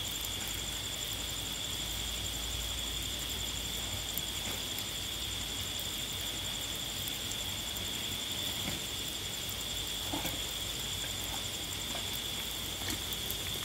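Crickets trilling steadily in one high, unbroken note over a low even hiss, with a few faint soft knocks about two-thirds of the way through.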